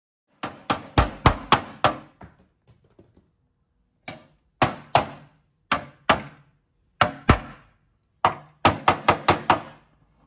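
A ball-peen hammer strikes the inside of a bare sheet-metal tank shell to shape it by hand. The blows come in quick bursts of two to seven, about twenty in all, and each rings briefly.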